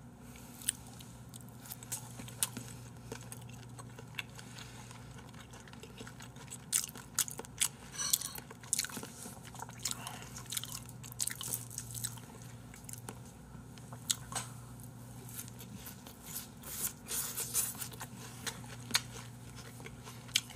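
Close-miked eating sounds: chewing and biting mouthfuls of raw salmon and beef tartare, with scattered sharp clicks of chopsticks against dishes, over a low steady hum.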